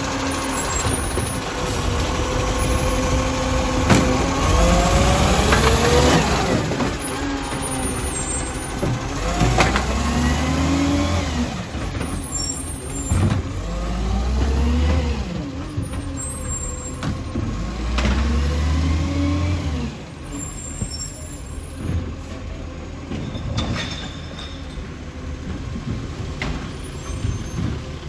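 Iveco Acco side-loader garbage truck's diesel engine revving up and dropping back several times as it pulls away, with a few sharp air-brake hisses. It gets quieter after about twenty seconds as the truck moves farther off.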